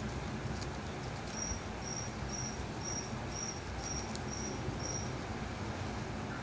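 Eight short high-pitched chirps about half a second apart, starting about a second in, over steady background noise. A few faint clicks come from a winter white hamster nibbling a leafy green.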